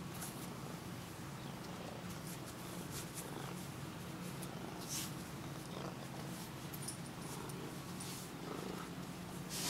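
Siamese cat purring steadily while being stroked by hand, with a few faint brushing sounds now and then.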